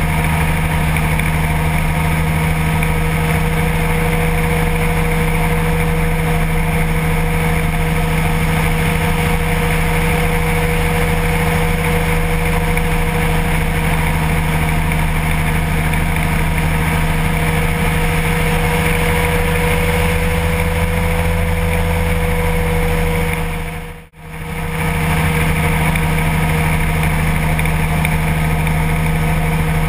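Kolb light aircraft's engine and propeller droning steadily in level cruise flight. The sound briefly dips almost to nothing about three-quarters of the way through and then returns.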